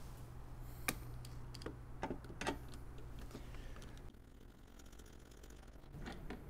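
Faint, irregular light clicks and ticks of a 13 mm socket on a hand driver turning a steel M8 hood bolt into its fitting on a Fisker Ocean, with a steady low hum that stops about four seconds in.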